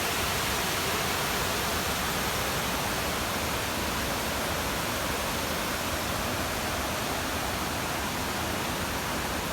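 Waterfall water rushing, a steady, even roar of falling water that does not change.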